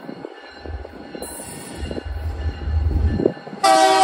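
Diesel freight locomotives approaching, their engines rumbling louder as they near, with a brief high-pitched squeal about a second in. Near the end the locomotive's air horn sounds loudly as a chord of several tones.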